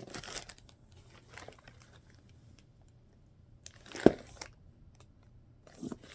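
Packaging of a subscription box being handled: intermittent crinkling and rustling, with one sharp knock about four seconds in.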